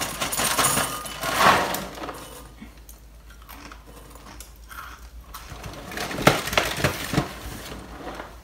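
Dry Shreddies cereal poured from the box into a bowl, the pieces clattering into it for about two seconds. A few sharp knocks follow about six to seven seconds in.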